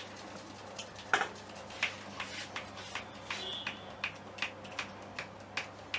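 A run of sharp clicks, roughly two or three a second, the first and loudest about a second in.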